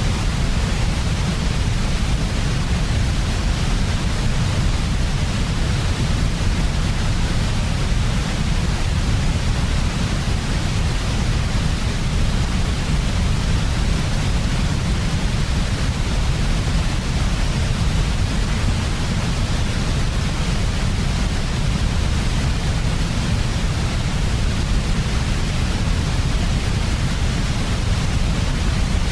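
Steady white noise for sleep, unchanging throughout, with a deep rumble underneath and a hiss across the upper range.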